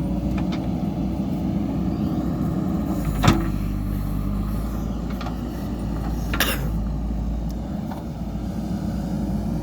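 JCB 3DX backhoe loader's diesel engine running steadily, with a sharp metallic knock about three seconds in and a second, weaker one past the middle.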